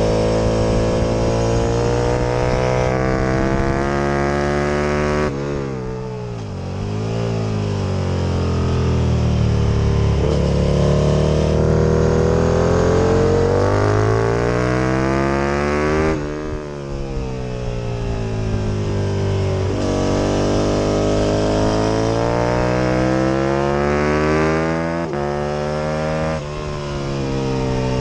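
A first-generation Aprilia RSV Mille's V-twin engine at racing speed, its pitch climbing in long sweeps as it pulls up through the revs. The revs fall sharply three times, about five, sixteen and twenty-six seconds in, as it slows and shifts down before climbing again.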